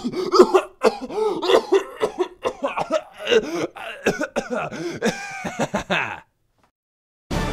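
A man's voice making wordless coughing and spluttering noises in short, choppy bursts, breaking off about six seconds in. After a second of silence, a sudden loud hit starts near the end and fades away.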